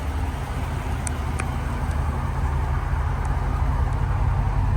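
Car engine running steadily with a low rumble that grows a little louder about two seconds in.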